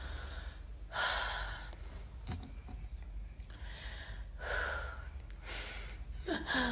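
A woman breathing hard in pain while trying to swallow pills: a few heavy, gasping breaths a second or two apart. Near the end there is a short vocal sound falling in pitch.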